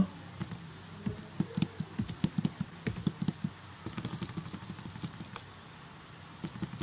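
Typing on a computer keyboard: a run of quick, irregular key clicks for about four seconds, then a short pause and a few more keystrokes near the end.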